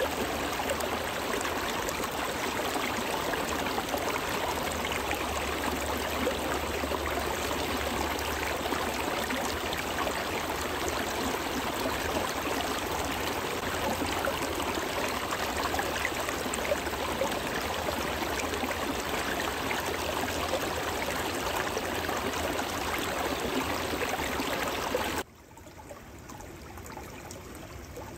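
Shallow stream babbling steadily over rocks between shelves of melting ice. A few seconds before the end it drops suddenly to a quieter, softer flow.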